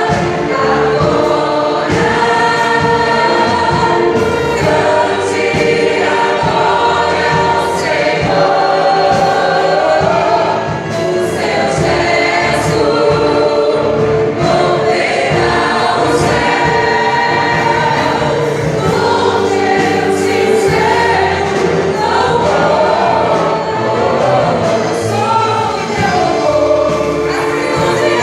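Church orchestra playing a gospel hymn with a choir singing along, steady and loud, with a regular beat.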